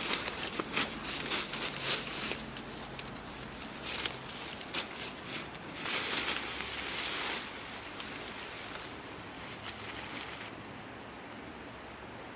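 Rustling and crackling, like dry leaves or brush being handled or stepped through, with a louder rustle about six seconds in that dies down near the end.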